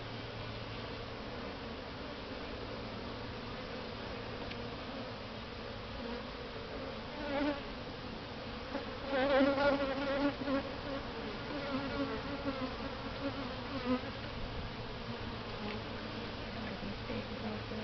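Honeybees buzzing steadily around an opened hive during an inspection, the buzz swelling into louder, wavering bursts a few times about midway.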